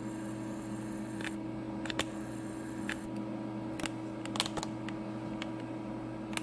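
Camera handling noise: a handful of light, sharp clicks and taps at irregular moments over a steady low hum.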